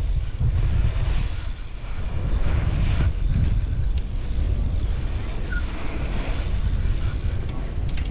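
Wind rushing over the action camera's microphone and a BMX bike's tyres rolling over concrete while riding through a skatepark bowl: a steady low rumble with a few light knocks.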